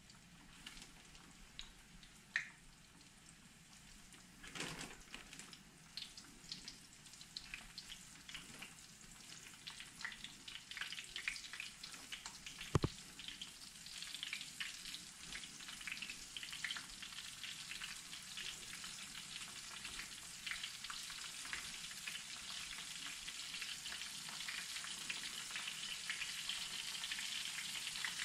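Battered perch pieces frying in hot vegetable oil in a pan: crackling and sizzling that grows louder and denser as more pieces go in. A single sharp click about halfway through.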